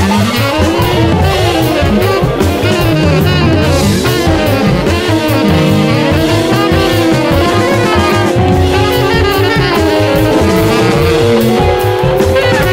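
Live electronic contemporary-jazz band of tenor saxophone, electric guitar, keyboards/electronics and drum kit playing. A busy drum beat runs under sliding, sweeping lines in the first few seconds, then long held notes that climb slowly toward the end.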